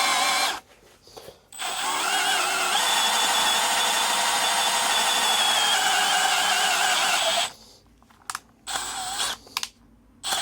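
Electric drill running a drill bit lengthened with a tin-soldered steel joint: the motor whines, stops briefly, then runs again for about six seconds with its pitch wavering, followed by a few short trigger bursts near the end.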